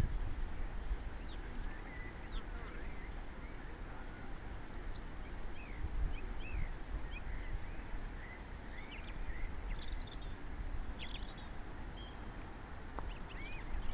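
Scattered bird calls, short chirps and whistles, over a steady low rumble of outdoor background noise.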